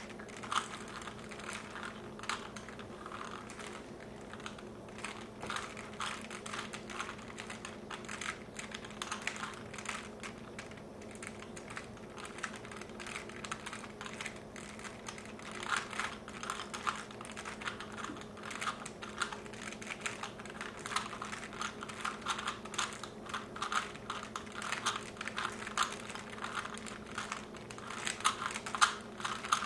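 Plastic 3x3 Rubik's Cubes being turned by hand at speed, the layers clicking and rattling rapidly and irregularly.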